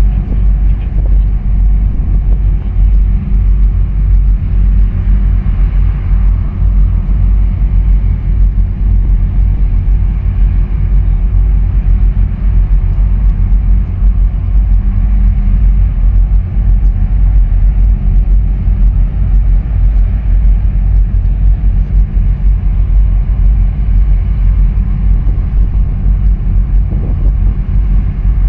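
Wind buffeting the microphone: a loud, low, fluttering rumble that stays steady throughout, with a faint steady hum beneath it.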